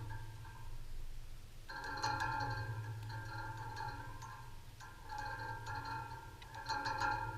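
Background music with mallet-percussion-like tones, held notes that drop out for about a second early on and then return, over a steady low hum.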